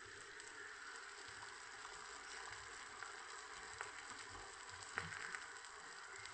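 Puris deep-frying in hot oil in an iron kadhai: a faint, steady sizzle, with a few sharp clicks, the loudest about five seconds in.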